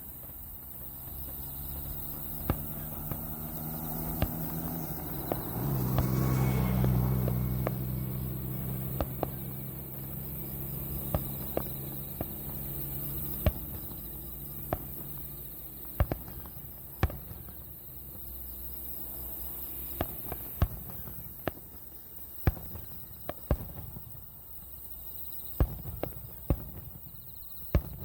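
Fireworks display heard from some distance from the launch site: a string of sharp, irregular bangs of bursting shells, with a low rumble that swells about five seconds in and dies away by the middle.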